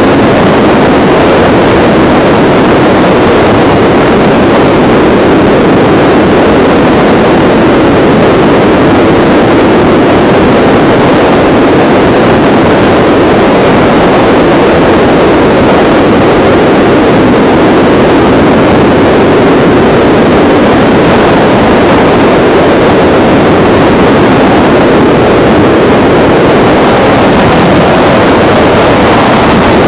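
Helicopter in flight heard from on board: steady, loud engine and rotor noise with no let-up, filling the camcorder's sound track.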